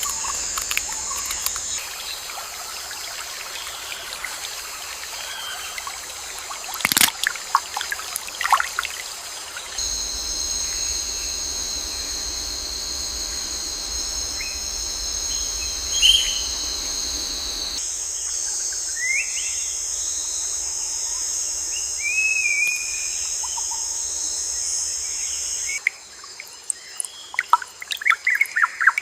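Nature ambience: a steady high-pitched insect chorus with scattered bird chirps and calls and a few sharp clicks. The chorus changes character every several seconds.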